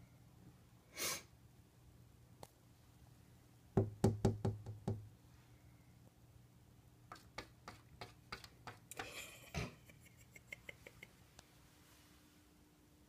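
A quick run of about six sharp knocks against the window, then a scatter of lighter taps and ticks a few seconds later.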